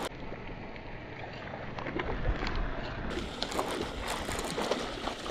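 Water splashing and lapping mixed with short clicks and rustling handling noise, as a hooked bass is reeled in to the bank.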